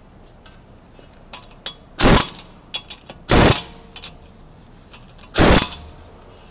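Three short bursts from a hand-held air tool worked at a car's brake disc hub, each about a quarter second long, with light metallic clicks and taps between them.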